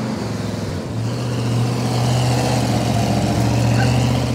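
Dirt-track stock car's engine running at speed around the oval. The engine note dips briefly about a second in, then holds steady and grows louder.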